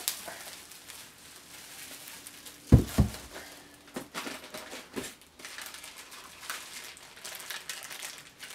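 Bubble wrap and cardboard crinkling and rustling as a wrapped chainsaw is lifted out of its shipping box. About three seconds in come two loud thuds as it is set down on a wooden crate, followed by a couple of lighter knocks.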